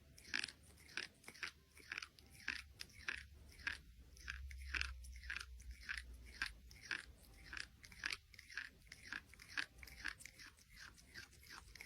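Quiet, crisp crunching of something being chewed: short, irregular crunches, about two or three a second.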